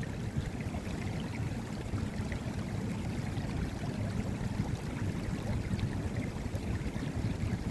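Steady rushing of river water, heaviest in the low end, with no distinct events.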